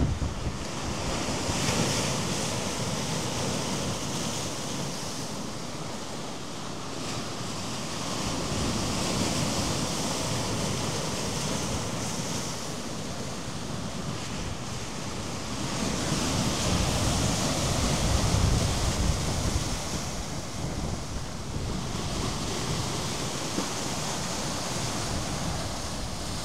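Rough sea surf crashing and washing over shore rocks, rising and falling as each wave breaks, loudest a little past halfway through. Wind buffets the microphone.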